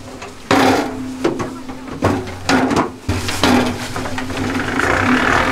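Wooden honey frames knocking against the metal wire cage of a radial honey extractor as they are dropped in, several sharp knocks. Near the end the extractor's electric motor starts and the reel spins up with a steady whir.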